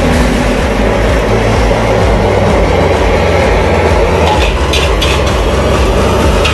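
Steady loud roar of a gas burner under an aluminium wok, with a metal spatula scraping against the wok as fried rice is stirred; a few sharper clinks come between about four and five seconds in.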